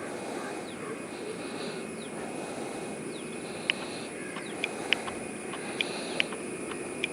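Outdoor ambience: a steady low rumble under a continuous high insect drone, with several short sharp bird chirps, mostly in the second half.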